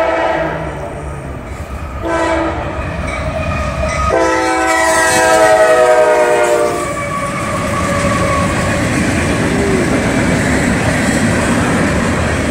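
CSX freight locomotive's horn sounding at a grade crossing: a few blasts, the last and loudest held about three seconds. Then the rumble and clatter of the locomotives and freight cars rolling past.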